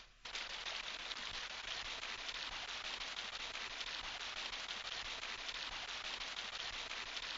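Steady crackling hiss of an old film soundtrack, dense with tiny clicks, beginning a moment in under a film-leader countdown.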